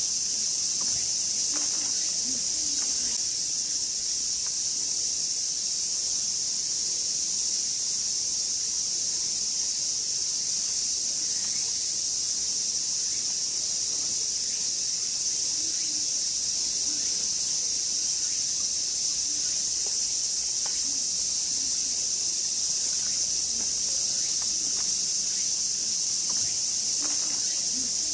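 Continuous high-pitched chorus of summer cicadas shrilling without a break.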